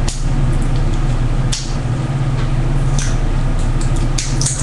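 A steady low hum with a few short clicks and crinkles of small plastic makeup jars being handled.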